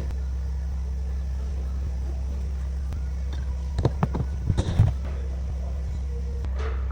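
A steady low mechanical hum, with a short run of sharp knocks and clicks about four seconds in, from hard parts or tools being handled.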